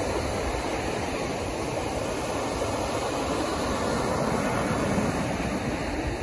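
Ocean surf breaking and washing up a sandy beach, a steady rush of water that swells a little about five seconds in.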